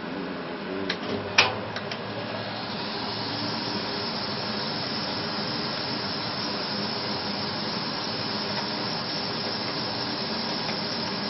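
A few light clicks and one sharp knock, then a steady hiss that sets in and holds evenly.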